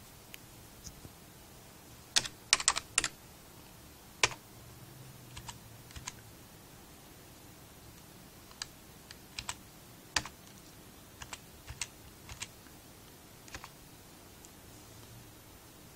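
Keys being typed: scattered single keystroke clicks and short runs of clicks, the loudest run about two to three seconds in, as a login and a shell command are entered.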